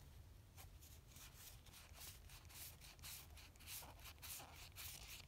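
Faint paper-on-paper swishes of Pokémon trading cards sliding against each other as they are flipped through one by one, about three a second, starting about half a second in.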